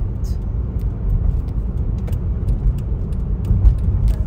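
Steady low rumble of a car driving at road speed, tyre and engine noise heard from inside the cabin.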